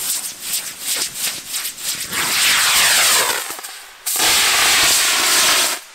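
Giant homemade helicopter-style firework burning: a stretch of crackling spurts, then its propellant motor hisses loudly, falling in pitch, as it lifts off. After a short lull a second strong hiss runs and cuts off suddenly near the end.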